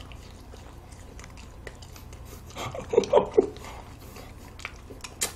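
Biting and chewing of hard-frozen melon-flavoured ice cream bars, with many small mouth clicks and smacks. A brief voice sound comes about three seconds in, and a sharp click near the end.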